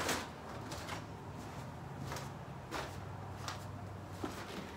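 Soft handling noises, a series of brief rustles and light knocks as a camera and a tote bag are picked up and carried, over a low steady room hum.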